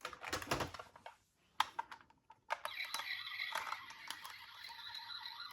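Light plastic clicks and rattles of a toy ambulance minicar being handled. From about two and a half seconds in, a faint steady high tone runs under further soft clicks.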